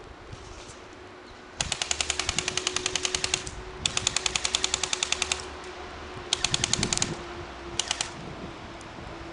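Airsoft gun firing full-auto: four bursts of rapid, even clicks. The first two bursts run about two seconds and a second and a half, then a shorter one and a brief one near the end.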